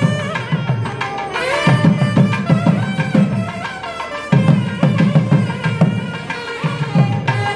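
A pair of nadaswarams playing a melody in unison with wavering, gliding ornaments, over thavil drums beating in rapid phrases that break off briefly about a second in, near the middle and near the end.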